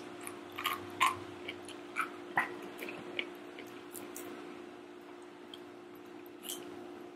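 Close-miked eating of jajangmyeon noodles and dumplings: short mouth smacks and clicks. They come several times in the first few seconds and only once or twice later, over a faint steady hum.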